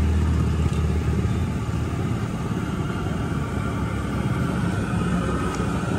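Steady low rumble of street traffic, with faint fainter sounds of the street above it.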